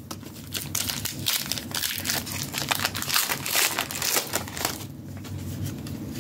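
Foil Pokémon booster pack wrapper crinkling as it is opened and handled, a dense crackle that dies down near the end.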